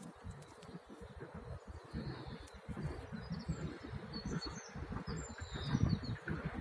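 Strong wind buffeting the microphone in uneven gusts, with a bird giving several short high chirps through the middle.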